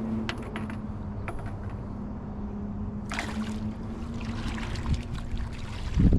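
Water lapping and trickling against a small fishing boat's hull, over a steady low hum, with a few light clicks and a short splashy hiss about three seconds in. A loud low buffeting comes in at the very end.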